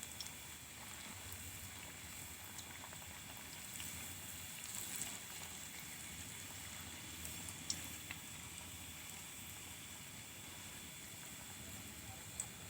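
Combro (grated-cassava fritters) frying in hot oil: a steady, fairly quiet sizzle and bubbling, with a few faint clicks of utensils.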